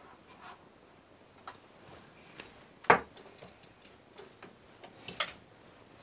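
Metal palette knife working oil paint on a palette: scattered light scrapes and clicks, with a sharp click about three seconds in and a quick pair of clicks near the end.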